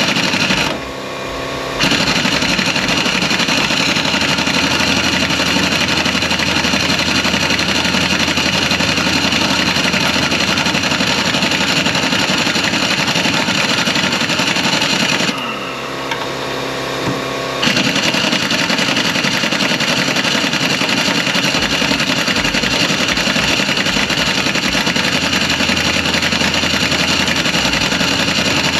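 Angle grinder with a cutoff wheel running loud and steady as it cuts into a seized upper control arm nut that jammed on its last threads. It eases off briefly near the start and again about halfway, then cuts on.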